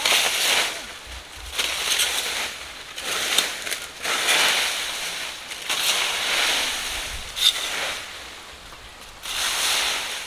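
Long-handled Wolf Garden Tools fan rake dragged through a thick layer of dry fallen leaves: a crisp rustling scrape with each stroke, coming every second or two. One sharp click a little past the middle.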